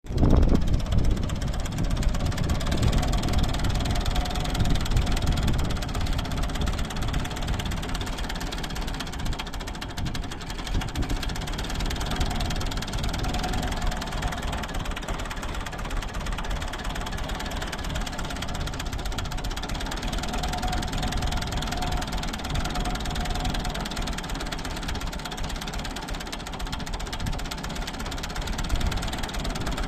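Ford 3910 tractor's three-cylinder engine running with a misfire.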